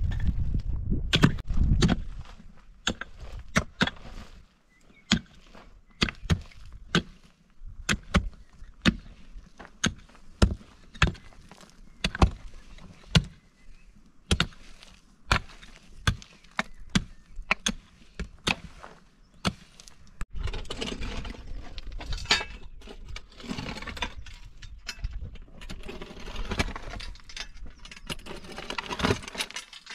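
A pick and a shovel digging into hard, stony earth. Sharp pick strikes land about once a second, with stones clinking. In the last third a steadier scraping and rattling of shovelled soil and stones joins the blows.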